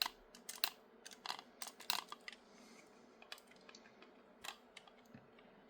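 Small sharp clicks and taps from handling small 3D-printed plastic suspension parts and screws, close together over the first two seconds, then a few scattered clicks.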